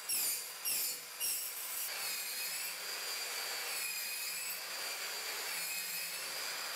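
Exact PipeCut electric pipe saw with a tungsten-carbide-tipped (TCT) blade cutting pipe. Three short bursts come in the first second and a half on copper pipe, then a steady high whine, wavering slightly in pitch, as it saws through plastic pipe.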